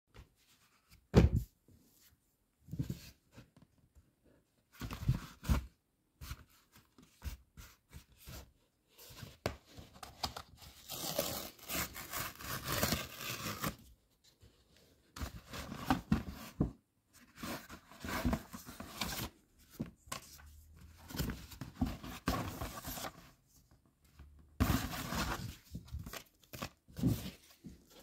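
A cardboard mailer is torn open and handled: irregular bursts of tearing and rustling cardboard, with a sharp knock about a second in.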